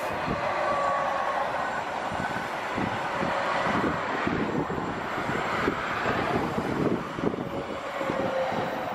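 A TILO Stadler FLIRT electric multiple unit passing close at speed: a continuous rushing rail noise with a faint steady whine over it.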